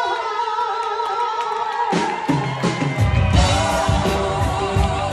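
Live rock band with several singers: sung notes held over light backing, then the low end and drums come in about two to three seconds in and the full band plays on.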